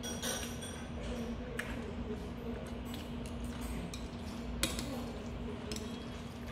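Metal chopsticks clicking and clinking against a ceramic noodle bowl while stirring and lifting jjajangmyeon, a few separate clicks with the loudest a little past halfway, over a steady low room hum.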